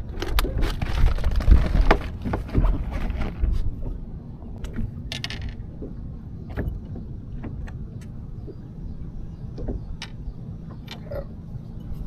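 Small knocks, clicks and rattles of gear being handled, over a steady low rumble. They are busiest and loudest in the first few seconds, with a brief rattle about five seconds in.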